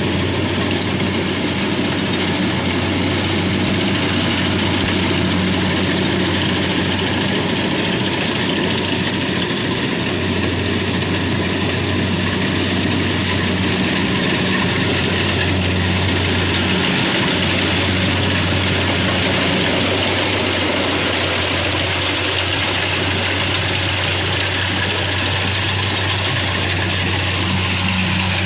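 An engine of a rice-harvesting machine running steadily at an even speed, with a constant low hum.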